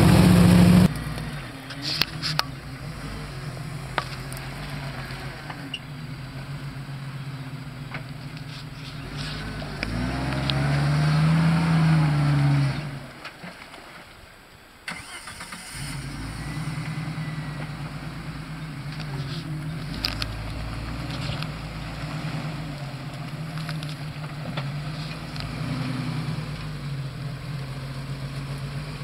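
Engine of a lifted Jeep on large mud tyres running at low revs as it crawls through water, with one rev up and back down about ten to twelve seconds in.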